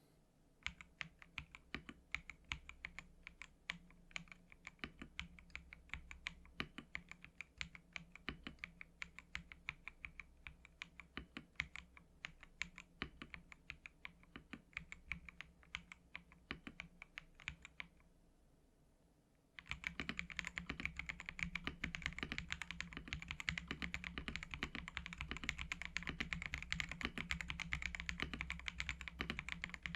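Typing on an Ajazz AK820 mechanical keyboard with Ajazz AS Red linear switches, ABS keycaps and a gasket-mounted polycarbonate plate: a steady run of key clacks. The typing pauses briefly about two-thirds of the way through, then comes back louder and faster.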